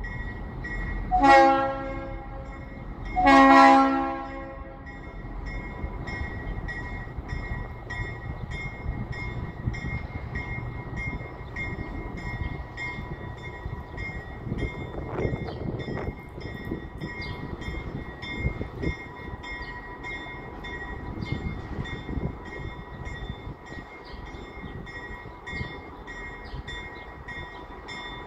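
Norfolk Southern diesel locomotive's air horn sounds two blasts, a short one about a second in and a longer one a couple of seconds later. Then a bell rings at a steady, quick beat over the low rumble of the locomotive.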